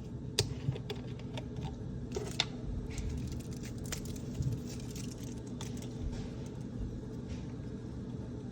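A few sharp clicks and light taps, scattered irregularly, over a steady low hum.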